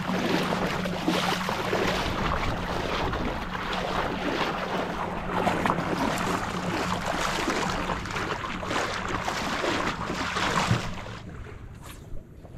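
Feet wading through shallow water in quick, uneven splashes, with wind on the microphone. The splashing stops about eleven seconds in.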